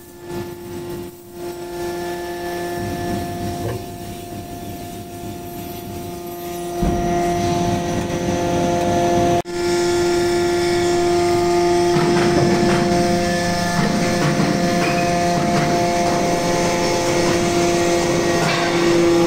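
Hydraulic metal-chip briquetting press running: a steady machine hum from its motor and hydraulic pump, which grows louder about seven seconds in.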